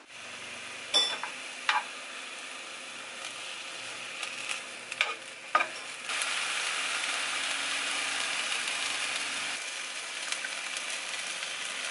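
Mushroom fried rice sizzling in a frying pan, with a few sharp clacks of the spatula against the pan in the first half. The sizzle grows louder about six seconds in and eases off again near ten seconds.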